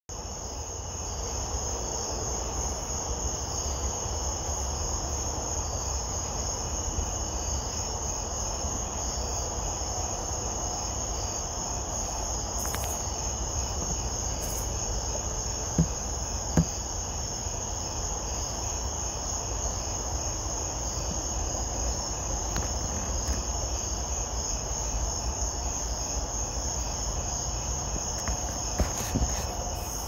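A katydid stridulating, rubbing its wings together: a steady, rhythmic high-pitched rasping call repeated without a break. Two sharp clicks come a little past halfway.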